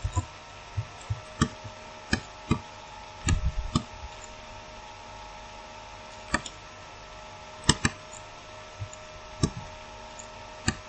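Scattered computer mouse clicks and knocks, about a dozen irregularly spaced with a close cluster about three and a half seconds in, over a steady electrical hum.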